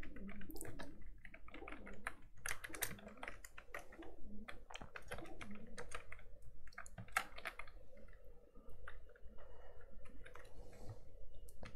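Typing on a computer keyboard: a quick, uneven run of key clicks that thins out in the last few seconds.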